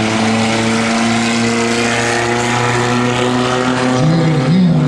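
Engines of front-wheel-drive race cars running on the dirt oval, several overlapping tones holding a steady drone. Near the end the pitch starts rising and falling as a car lifts off and gets back on the throttle.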